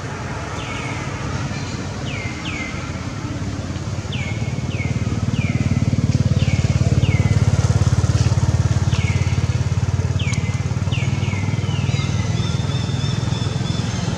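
A motor vehicle engine drones at low pitch, growing louder about four seconds in and loudest around the middle. Over it come repeated short high chirps that fall in pitch, often in pairs.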